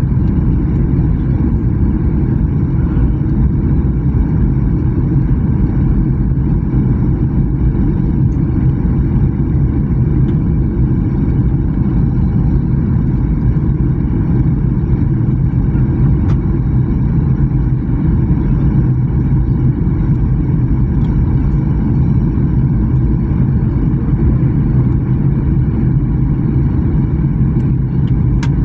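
Steady drone inside the cabin of a Boeing 737 jet airliner in descent: engine and airflow noise heard at a window seat, a low, even rumble that does not change.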